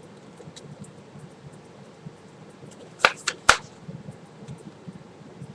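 A large fold-out paper map being handled, with faint rustling and three sharp paper crackles close together about three seconds in, the last one the loudest.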